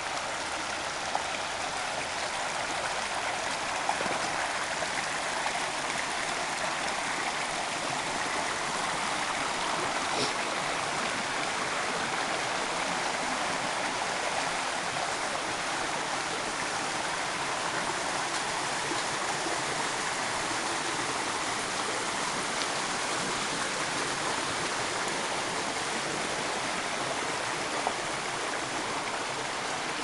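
A small rocky woodland stream flowing: a steady rush of running water, with a few faint clicks.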